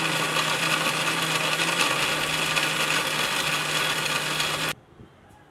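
Electric mixer grinder running at full speed with its steel jar, grinding chopped onion into a masala paste; a steady motor hum under a loud whir, cutting off suddenly about four and a half seconds in.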